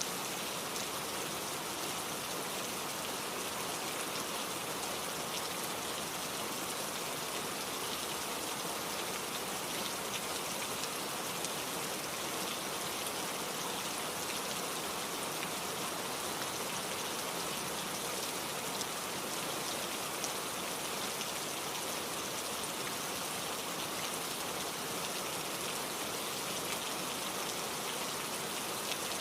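Steady rain falling, a dense even hiss of many small drops pattering on a surface.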